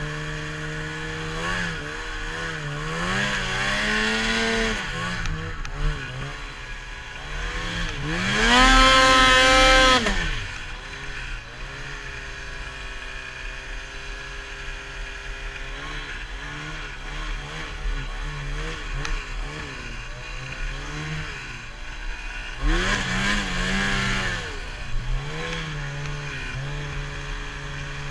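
Lynx Boondocker 800 snowmobile's two-stroke engine revving up and down as it ploughs through deep powder, with the longest and loudest rev about eight seconds in and another about twenty-three seconds in.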